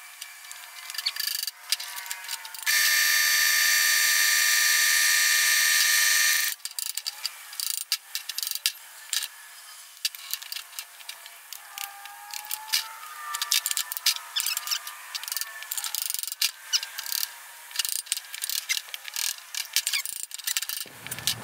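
Metal-on-metal taps and clinks of a hammer and tools working a new U-joint, with its caps and inner C-clips, into a Dana 60 front axle shaft yoke held in a bench vise. About three seconds in, a loud steady tone with several pitches at once sounds for about four seconds and cuts off suddenly.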